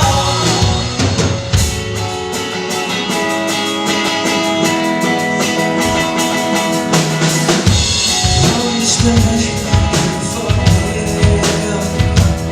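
Live rock band playing an instrumental passage, with held guitar or keyboard notes over a drum kit. The bass drum drops back about two seconds in, and the full kit with kick and snare comes back in hard near the eight-second mark.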